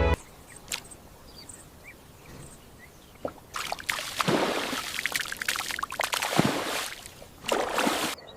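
Water splashing and sloshing in irregular bursts, from about three and a half seconds in until about seven seconds, and once more briefly near the end.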